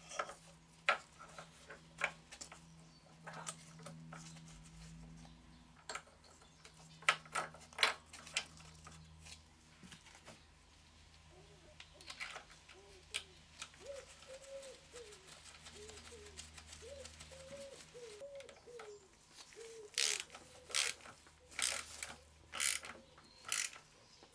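Sharp metallic clicks, clinks and knocks of hand tools and steel fittings while a new diesel fuel injector and its fuel pipe are fitted and the pipe union is tightened with a ratchet, loudest near the end. Through the middle, a pigeon coos in short repeated phrases in the background.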